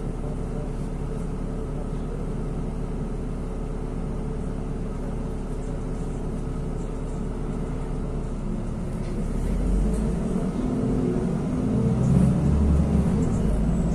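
Cabin noise of a NefAZ 5299-40-52 electric bus. It holds a steady hum with a few fixed tones while standing, then a louder low rumble from about eight seconds in as the bus pulls away.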